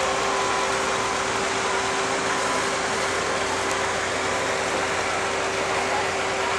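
Engine of a John Deere farm tractor running steadily under load as it pulls a weight-transfer sled, a constant drone with one steady tone through it.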